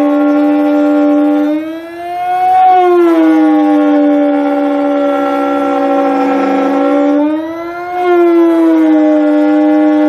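A siren-like wailing tone that holds steady, then dips, rises in pitch and slowly falls back, twice, about six seconds apart.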